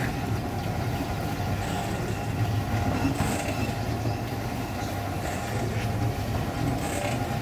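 Homemade mini cement mixer, a plastic drum on a steel stand turned by a small electric motor through a pulley drive, running empty: a steady motor hum with a continuous rattle from the turning drum and drive.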